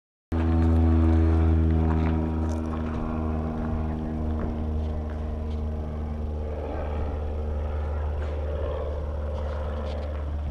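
A small propeller plane's engine droning steadily overhead. The drone is loudest in the first two seconds, then eases a little and holds.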